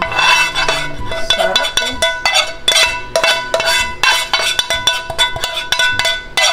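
Background music with bell-like percussion: quick struck notes several times a second over steady ringing tones.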